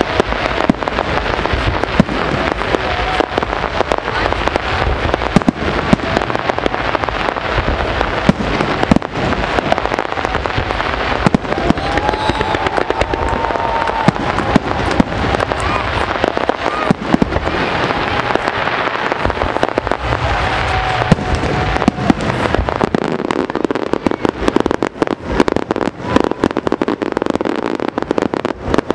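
Fireworks display: aerial shells bursting in a rapid string of bangs, turning into dense crackling near the end.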